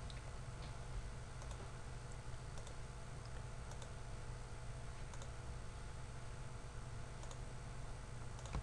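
Faint, scattered single clicks of a computer mouse, a few seconds apart, over a steady low hum.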